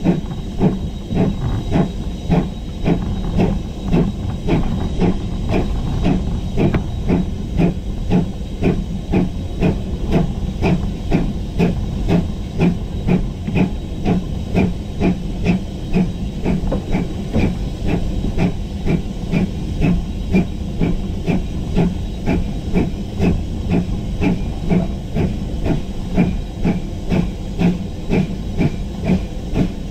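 GWR Grange class two-cylinder 4-6-0 steam locomotive heard from the footplate, working under steam at a steady pace: an even rhythm of exhaust beats over a constant hiss of steam.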